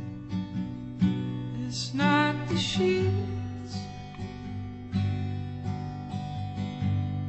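Music: strummed acoustic guitar over steady held bass notes, with a short sliding vocal-like phrase about two seconds in.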